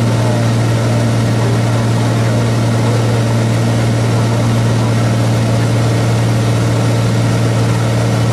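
Cessna 210's piston engine and propeller in cruise, a steady, loud, unchanging low drone heard inside the cabin.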